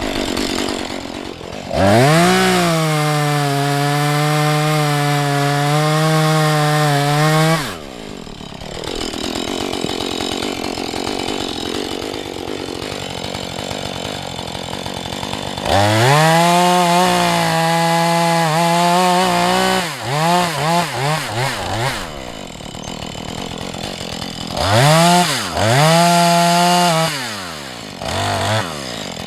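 Husqvarna 435 two-stroke chainsaw revved up to full throttle three times, dropping back to idle between: a long held rev, a second one whose pitch wavers and dips several times near its end, and a shorter one near the end.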